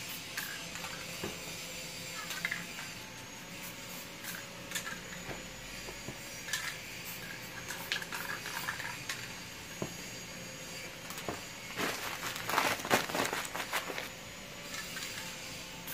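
A crumpled sheet crinkling and rustling as it is handled and dabbed onto a spray-painted canvas to texture the paint. Scattered light rustles and clicks give way to a louder run of crinkling about twelve seconds in, lasting a second or so.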